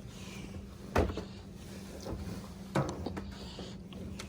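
Clothes dryer door being handled: two sharp knocks about two seconds apart, with lighter clatter, over a steady low hum.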